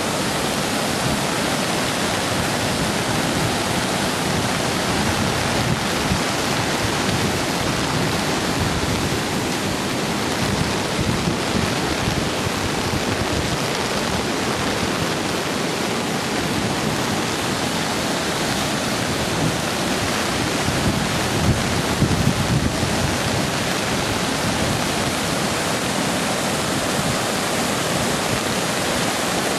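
Steady rush of storm floodwater, with a few brief louder surges around eleven and twenty-one seconds in.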